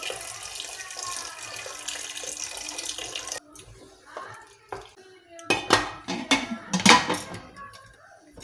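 Water poured from a kettle into a pressure cooker of browned chicken, stopping suddenly about three seconds in; then a spoon stirring in the pot and a burst of loud metal clattering as the pressure cooker lid is put on and locked.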